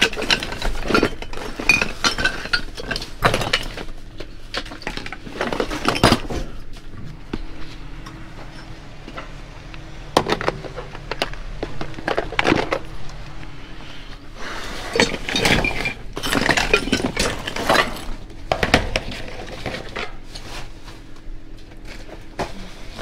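Hard household items clattering and clinking against each other as trash is dug through in a dumpster: irregular knocks and clinks in clusters, with short lulls between.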